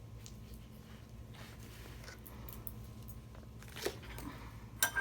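Quiet room tone with a low steady hum, and a few light clicks and knocks, the two sharpest near the end.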